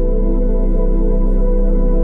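Ambient new-age music: sustained, layered drone tones over a deep low hum, with a faint fast pulsing.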